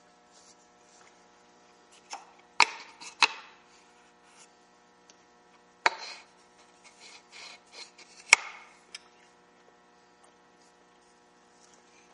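Wooden game pieces being handled and set onto the dowel pegs of a wooden board: four sharp wooden clacks, with lighter taps and rubbing between them.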